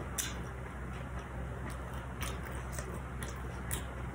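Close-up chewing of a mouthful of fried shrimp-and-pork spring roll (chả giò), with faint crisp clicks every half second or so over a steady low hum.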